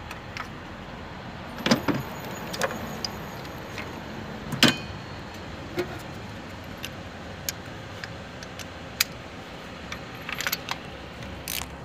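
Scattered sharp metallic clicks and clinks, about seven spread unevenly, as tools and ignition parts are handled at a Toyota Camry engine during spark-plug removal. Under them runs a steady low hiss.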